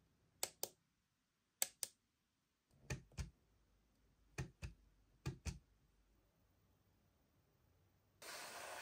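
Plastic clicks from a Lexibook Mickey Mouse nightlight alarm clock's controls being pressed and released, in five quick pairs over about five seconds. A short burst of hiss comes in near the end.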